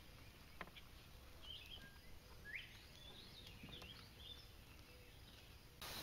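Near silence: faint outdoor background with a few soft, distant bird chirps, mostly between about one and a half and four seconds in. The background grows louder just before the end.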